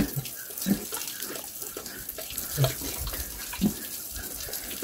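Water sloshing and splashing as a pregnant sow drinks, with a few short, low sounds from the pig at intervals.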